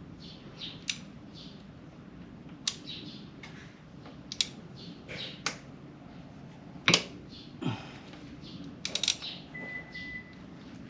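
Scattered clicks, taps and clinks of hand tools and small parts being handled during a scooter oil change, with one louder knock about seven seconds in, over a steady low hum.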